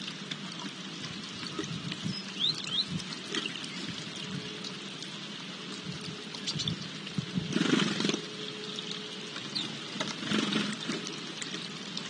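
Water trickling steadily from a small stone garden fountain, with brief high chirps from sparrows scattered through. Two short louder rustling bursts stand out, one about two-thirds of the way in and a smaller one soon after.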